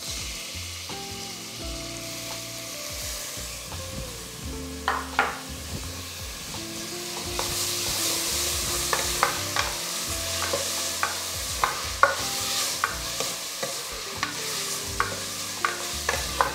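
Chopped tomatoes sizzling in hot groundnut oil with onions in an aluminium pressure cooker, stirred with a wooden spatula that knocks and scrapes against the pan. The sizzle grows louder about halfway through, and the spatula knocks come often from then on.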